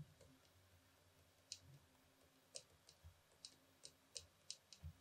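Faint, irregular clicking of a stylus tip tapping on a tablet screen during handwriting: about eight short, sharp clicks, beginning about a second and a half in.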